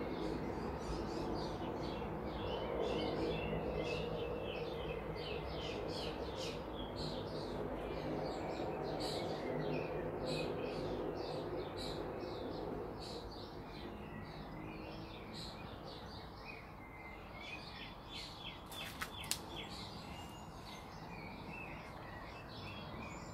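Aircraft taking off at a distance: a steady low rumble that swells a few seconds in and fades away over the second half. Many small birds chirp all the way through.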